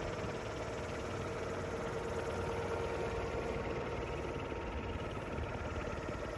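Motor-driven air propeller pushing an inflatable boat, running with a steady drone and a humming tone that swells slightly about three seconds in.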